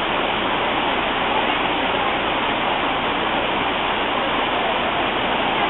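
Steady, unbroken rush of water pouring over the rock cascades of Dunn's River Falls.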